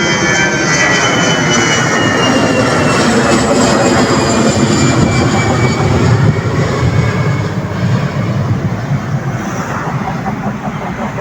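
Jet airliner passing close by with its engines running. The engine whine slides down in pitch as it goes, loudest a little past halfway and then easing off.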